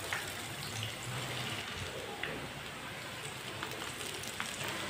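Batter-dipped bread rolls frying in hot oil in a pan: a steady sizzle with a few faint crackles.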